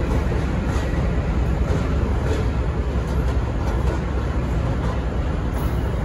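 V/Line passenger carriages rolling past on the rails with a steady rumble, with faint clicks about once a second from wheels running over rail joints.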